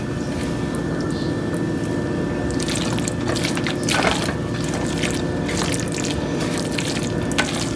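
Silicone spatula stirring pasta through a thick cheese sauce in a skillet: wet squelching and light scraping, over a steady background hum.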